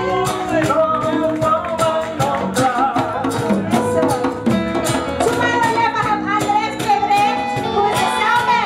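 Live band music: a woman sings into a microphone over acoustic guitar, electric guitar and bass.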